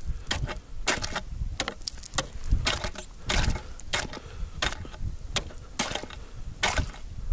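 Steel-tipped ice chisel (ice spud) chopping a hole in thin first ice, about 6 cm thick. Repeated sharp strikes on the ice, irregular at about two to three a second, with chips of ice skittering.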